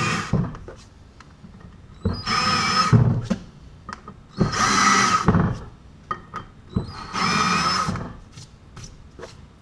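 Small hand drill spinning a chamfer bit to chamfer the freshly tapped bolt holes in a flywheel: short runs of whine of about a second each, one ending just after the start and three more spaced a couple of seconds apart, with small handling clicks between.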